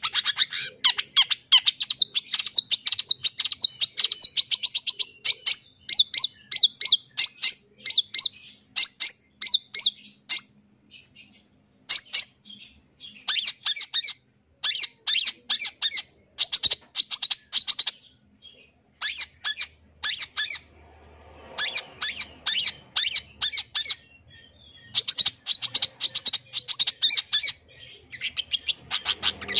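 Long-tailed shrike (cendet) singing a fast, chattering song of short high notes, packed with mimicked phrases, in long bursts broken by a few short pauses.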